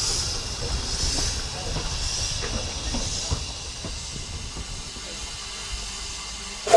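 Single Fairlie steam locomotive Taliesin moving slowly with steam escaping at its cylinders: a hiss of steam that swells about once a second, fading out after about three seconds.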